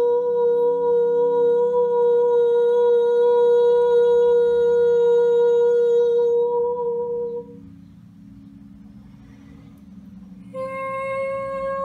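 Sound-healing tones: a long, steady held note fades out about seven seconds in, and after a short lull a slightly higher note begins near the end, over a low steady drone.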